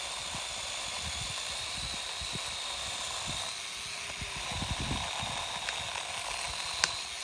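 Battery-powered mini electric chainsaw running steadily, its chain cutting through a pine branch with a hissy rasp and a faint high whine. There is a single sharp click near the end.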